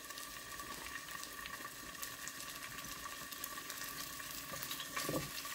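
Chicken leg sizzling in hot oil in a nonstick frying pan: a steady frying hiss with light crackling that grows a little louder toward the end, with a soft knock about five seconds in.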